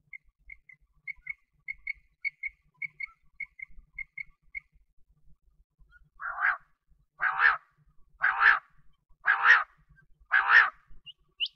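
Quail calling. A run of short, high, clear pips, many in pairs, is followed by five louder, harsher calls about a second apart, with a brief rising note near the end.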